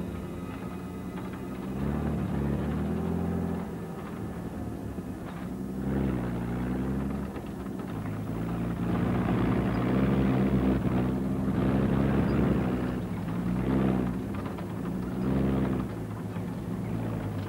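Old truck and bus engines running as the vehicles drive, their pitch rising and falling, with the noise swelling loudest past the middle.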